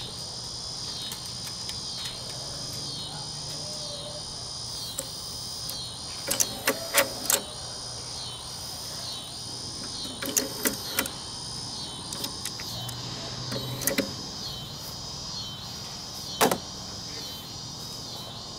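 Nakamichi Unidirectional Auto Reverse mechanism working: a low motor hum with groups of mechanical clicks and clunks as a front-panel button is pressed and the mechanism turns the cassette over to play its other side. The loudest single clunk comes about three-quarters of the way through.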